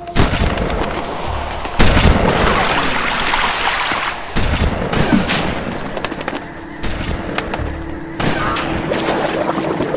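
A run of about five loud sudden booms, each trailing off into a rushing noise, with music underneath and a steady low drone in the second half.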